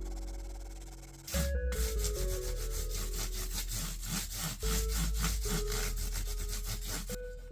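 Hand sanding on the bass: quick, even back-and-forth abrasive strokes, about five a second. They start about a second in and stop shortly before the end, over background music.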